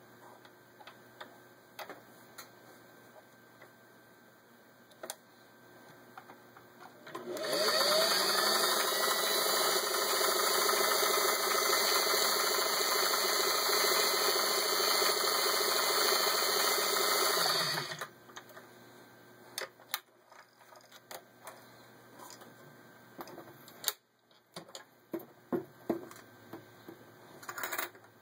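1959 Singer 403A sewing machine running for about ten seconds while sewing a cam-driven blind stitch, speeding up as it starts and slowing as it stops. Light clicks and knocks come before and after it.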